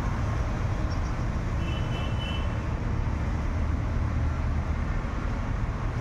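Steady low rumble of background vehicle noise, with a faint brief high tone about two seconds in.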